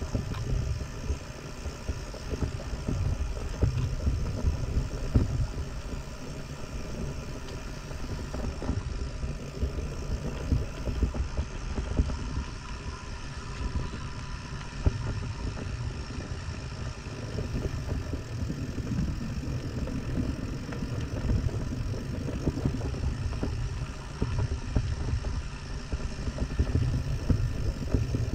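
Mountain bike ridden on a trail: gusting wind rumble on the action camera's microphone with rattle and knocks from the bike and tyres over the ground.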